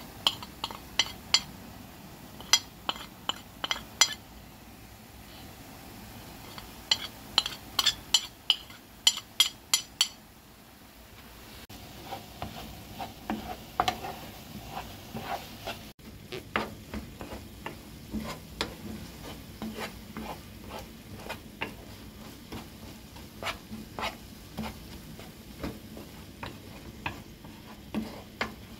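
Wooden spoon stirring a thick eggplant, herb and spice mash in a nonstick grill pan, knocking and scraping against the pan bottom. Two bursts of quick, sharp taps come in the first ten seconds, followed by steadier stirring strokes for the rest.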